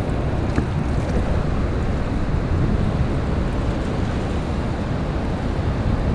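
Steady wind buffeting the microphone over the rush of choppy river water.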